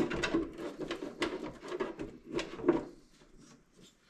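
Plastic body shell of an RC crawler truck being handled and set onto the chassis: a quick run of light knocks and clatter for about three seconds, then quieter handling.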